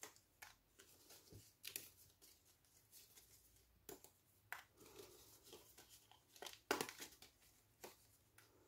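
Faint, scattered paper rustles and small snaps of die-cut paper flowers and leaves being pushed out of a cardstock sheet, a few close together about two-thirds of the way in.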